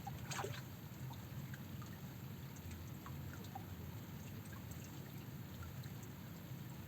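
Faint water sounds: scattered drips and trickling over a steady low rumble, with one brief splash-like sound just after the start.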